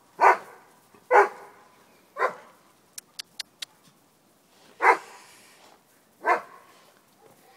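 A dog barking five times in short, sharp barks at uneven intervals, with a brief run of four faint clicks in the pause between the third and fourth barks.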